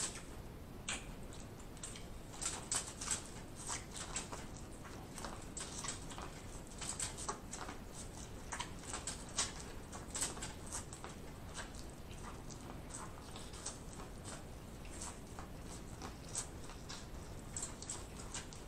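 Corn on the cob from a seafood boil being eaten close to the microphone: teeth nibbling kernels off the cob in many small, irregular clicks and crackles, with a few sharper ones now and then.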